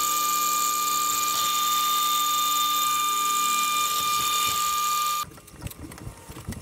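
Drill press running with a steady high whine while a twist drill bores into a small aluminium block held in a machine vise. The sound cuts off suddenly about five seconds in, leaving faint clicks and handling.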